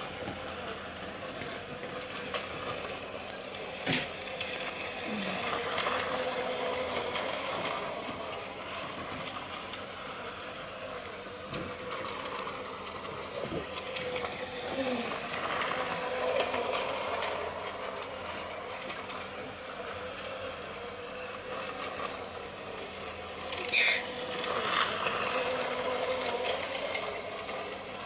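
Battery-powered toy train running around plastic track: a steady small-motor whir with clicking and rattling wheels, and a louder clatter near the end.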